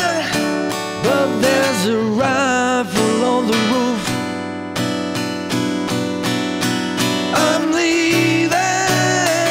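Music: acoustic guitar strumming a steady rhythm, with a gliding melody line over it.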